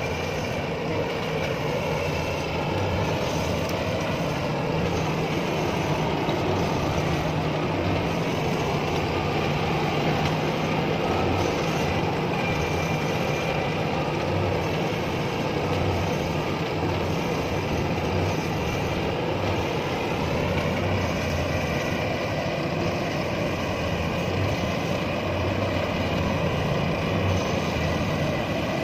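Iseki HC80P rice combine harvester's engine running steadily under load as the tracked machine labours through deep mud, with a steady higher whine over the engine note.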